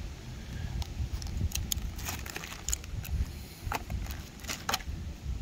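Scattered light clicks and taps over a steady low rumble, with a few sharper clicks about two seconds in and again near the end.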